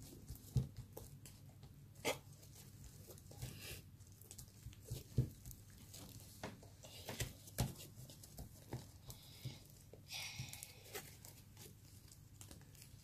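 Homemade PVA-glue and borax slime being squeezed, kneaded and stretched by hand, giving faint, irregular sticky clicks and pops.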